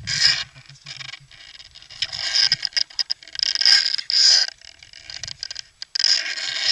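Irregular bursts of scraping and rustling, five or six of them, the longest near the end.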